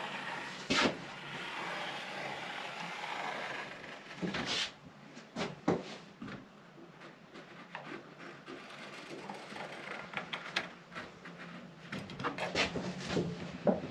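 Scribing with a pair of compasses: the point drags along an old timber deck beam while the pencil scrapes across a hardboard template, a steady scraping for the first few seconds, then scattered clicks and light knocks as the compasses and board touch the beam, busiest near the end.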